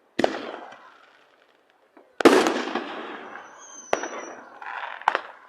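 Consumer fireworks going off: a sharp bang, then a louder blast about two seconds in with a long rumbling tail, followed by two more sharp cracks.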